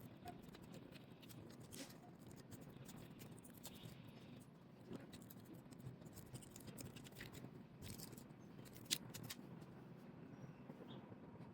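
Faint clicks and scratches of hands and small tools working on an opened iPhone 8 Plus as its battery is fitted, with one sharper click about nine seconds in.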